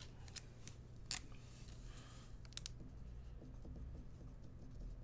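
Light clicks and scrapes of a trading card and a clear plastic sleeve being handled, with one sharper click about a second in.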